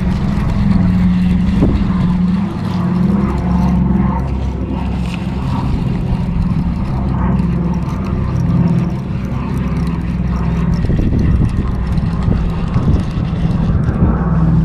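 Boat motor running with a steady low hum that pulses slightly, with a few scattered sharper noises over it in the second half.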